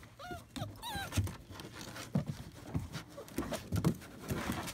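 Vizsla puppies whining: a few short high whines that rise and fall in the first second and a half, followed by scattered clicks and soft thuds as a puppy scrabbles its claws up the plastic slide.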